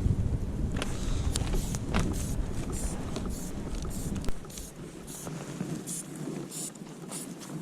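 Wind buffeting the microphone in a low rumble that drops away suddenly about four seconds in, with scattered light clicks and short hissy scrapes throughout.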